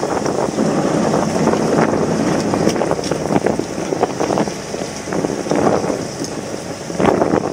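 Wind buffeting the microphone over water splashing and lapping against a small fishing boat's hull.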